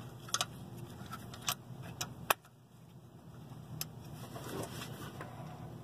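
Hand work on the fuel lift pump fittings in a tight engine bay: a handful of sharp, scattered clicks and light taps of tools and metal parts, the loudest a little over two seconds in, over a faint low steady hum.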